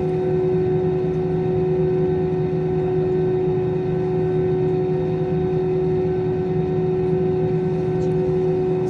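Airbus A320 airliner's engines running at a steady speed, a constant hum with a strong, unchanging tone.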